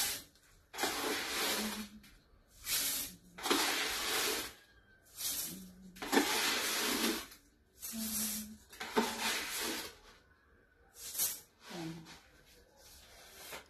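Rice being readied for cooking at a kitchen sink: about ten short hissing pours, each around a second long with gaps between.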